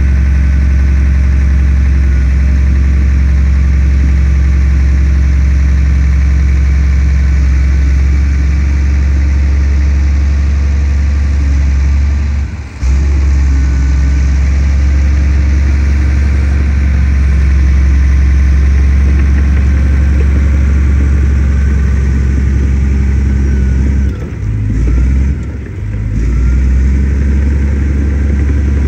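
Diesel engine of a Komatsu D58P crawler bulldozer running with a steady, loud low hum. The level dips briefly about halfway through and twice more near the end.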